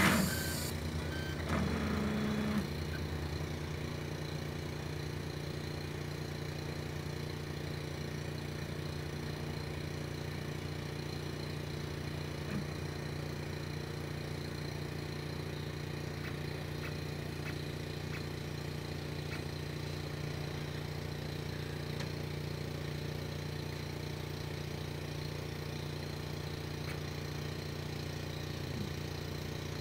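Gantry pick-and-place machine running: a steady low mechanical hum, with a short motor whine about two seconds in and a few faint clicks as it places a clear plastic lid.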